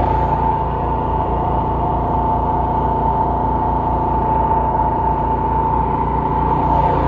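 Small generator engine, its carburettor modified to run on biogas from poultry waste, running steadily on a low-pressure gas feed, with a steady high whine over the engine note.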